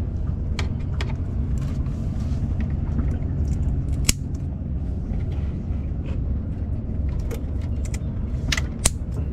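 Scissors snipping through a lionfish's spines: scattered sharp clicks, the loudest about four seconds in and two close together near the end, over a steady low rumble.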